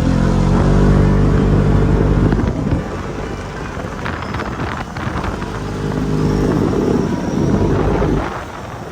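Off-road vehicle engine revving hard twice, once at the start and again from about halfway, rising and falling in pitch, with quieter running between and after.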